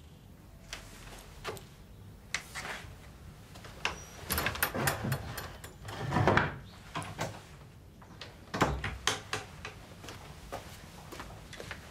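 Rummaging at a wooden wardrobe: scattered clicks, rustling and handling, then a wooden knock as the wardrobe door is shut. The loudest thump comes about six seconds in, with another sharp knock a little before nine seconds.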